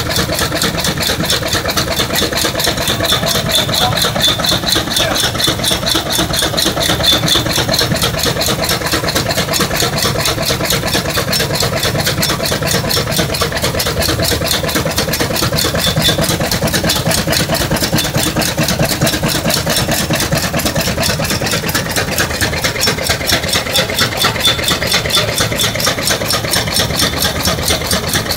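Nichols & Shepard steam traction engine running steadily, its exhaust and moving crank and valve gear keeping a rapid, even beat.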